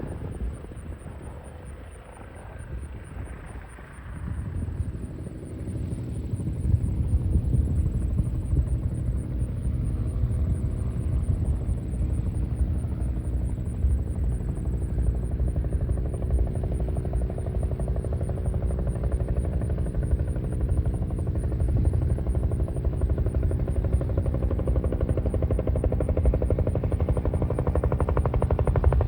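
Helicopter running: the rotor and engine noise swells about five seconds in, then holds as a steady low rumble with a constant hum.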